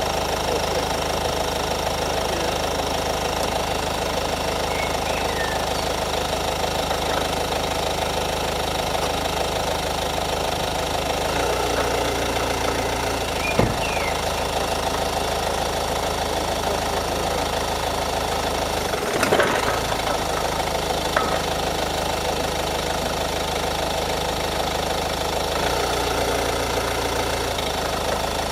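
Ford Focus engine idling steadily with the front wheels off the ground, with a sharp click about halfway through and a heavier clunk some five seconds later as the brake is pressed. The clunk on braking is typical of wear the owner suspects in a front driveshaft or where it enters the transmission.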